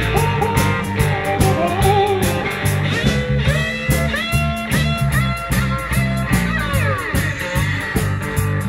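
Live blues band playing an instrumental break: an electric guitar plays lead lines with pitch bends and slides over a steady bass line and drums.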